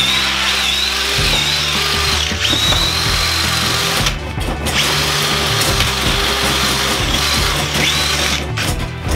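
Cordless drill running with a long bit pointed down into the floor, its high motor whine wavering in pitch, cutting out briefly about four seconds in and again near the end.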